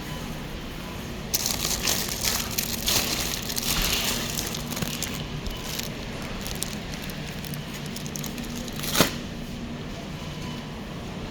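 Crinkling and rustling of packaging for a few seconds, then a single sharp knock about nine seconds in, over a steady low hum.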